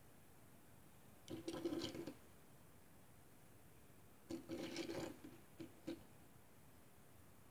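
Small die-cast metal toy boat being handled and shifted on a wooden tabletop: two short spells of light clicking and scraping, about a second in and again around the middle.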